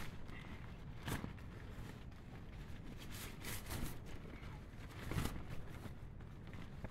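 Rustling and soft handling knocks inside a tent, in short bursts about a second in, twice between three and four seconds, and loudest just past five seconds, over a low steady rumble.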